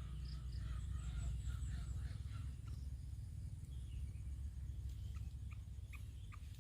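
Bulbul chirping: a quick series of short chirps in the first couple of seconds, then a few sharp single chirps near the end, over a steady low rumble.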